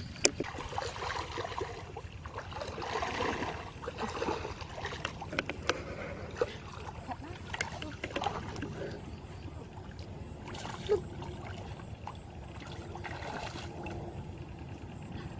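Water splashing and sloshing, with many short sharp splashes and knocks, thicker in the first half and quieter later.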